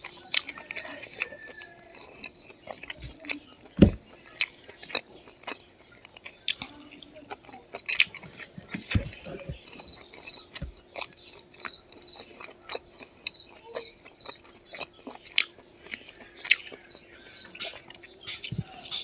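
A person chewing pork and rice close to the microphone: irregular wet smacks and clicks, a few every second, over a faint steady hum.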